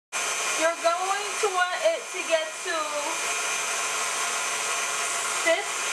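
KitchenAid stand mixer running steadily with its wire whisk, whipping Italian meringue after the hot sugar syrup has gone in; a steady motor whir with a thin high whine. A voice talks over it for the first few seconds and briefly again near the end.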